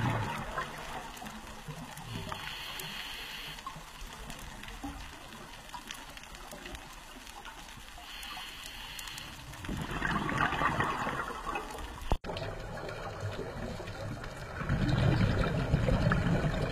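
Scuba diver breathing through a regulator underwater: a short hissing inhale, then a longer gush of exhaled bubbles, in two breath cycles.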